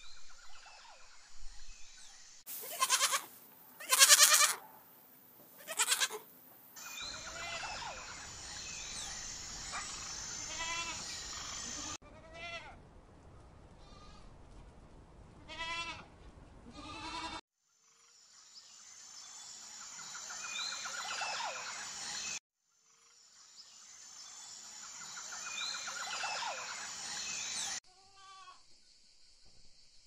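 Goats bleating: three loud bleats in the first few seconds, then quieter, wavering bleats, heard over a steady high hiss in some stretches. The sound changes abruptly several times between separate recordings.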